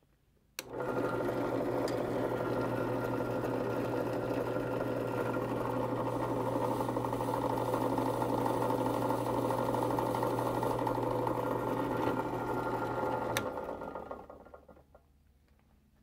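Clarke bench drill press switched on with a click and running steadily while a 1/4 inch counterbore is fed down into G10 knife-handle material. Near the end it is switched off with a click and spins down.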